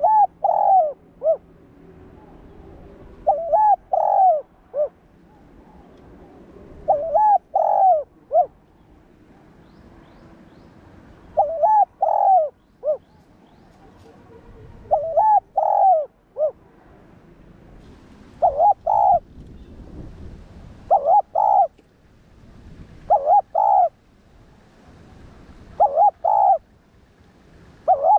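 Spotted dove cooing: a phrase of three or four cooing notes repeated every few seconds, the phrases coming closer together in the second half.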